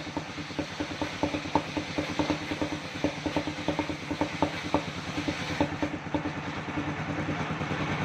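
Circular-saw sawmill machinery running with a steady engine drone and a rapid, irregular clicking rattle, which thins out after about six seconds.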